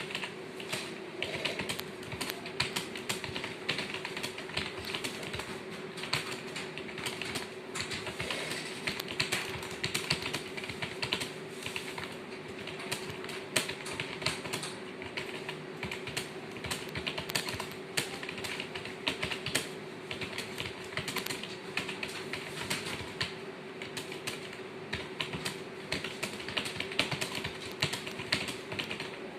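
Continuous fast typing on a keyboard: a rapid, uneven stream of key clicks with no pauses, as in a timed typing test.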